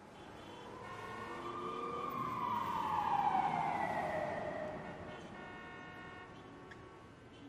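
A single long siren wail that swells and then falls in pitch as it fades, over a faint steady drone.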